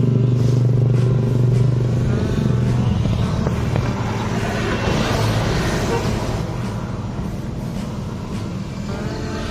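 A steady low buzz with a rough, crackling noise over it, from metalworking equipment. The buzz is strongest at the start and eases off over the first few seconds.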